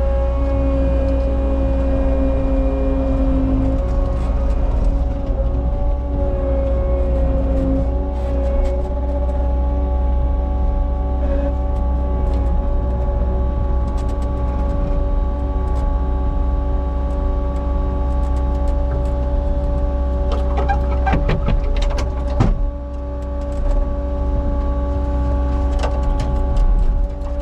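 Cat 279 skid steer's diesel engine running steadily under load, with a steady whine over a heavy low rumble. A cluster of sharp clanks comes about three quarters of the way through.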